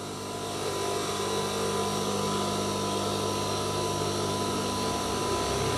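Steady electric hum of an industrial sewing machine's motor running idle, with no stitching; it rises over about the first second and then holds even.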